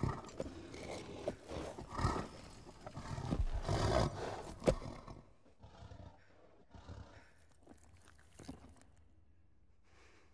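A large black horse snorting and blowing with heavy stamps just overhead for the first five seconds, then quieter short, repeated sniffing breaths.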